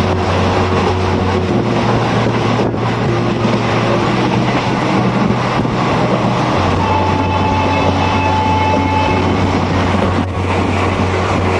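Passenger train running along the track: a steady, loud rumble and rush of wheels on rails.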